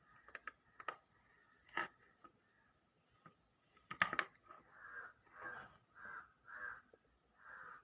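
Small clicks and knocks of plastic switch-board parts being handled and removed, with the loudest clatter about four seconds in. It is followed by a run of about five short, evenly spaced sounds, roughly half a second apart.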